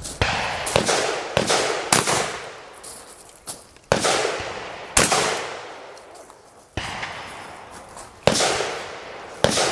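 Firearm shots during a multigun match stage: about ten shots at an uneven pace, roughly one a second, each followed by a long echoing decay.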